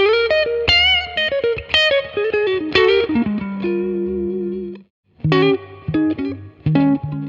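Electric guitar played through a Cali76 Stacked Edition FET compressor pedal with some dry signal blended in. A run of picked notes leads into a long sustained note with vibrato that cuts off sharply about five seconds in, followed by short, clipped notes and chords.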